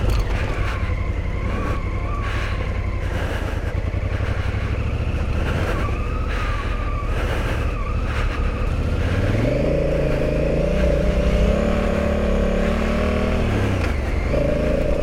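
Big adventure motorcycle's engine running under way on a muddy dirt trail. About two-thirds of the way through it revs up to a higher, steady pitch, then drops back near the end.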